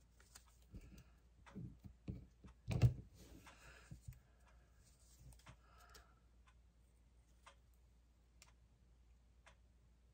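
Quiet hand-handling of small paper embellishments on a craft desk: light rustles and scattered small taps, with one louder knock about three seconds in, then only a few faint clicks.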